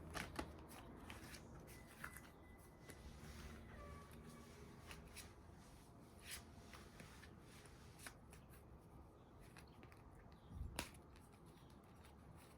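A deck of divination cards being shuffled and handled quietly, with scattered soft card flicks and one sharper slap about eleven seconds in.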